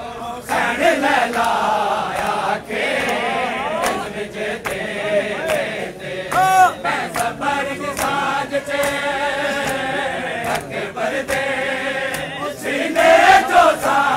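Men singing a Punjabi noha (mourning lament) together as a chant, with the sharp slaps of hands on bare chests in matam breaking through at uneven intervals.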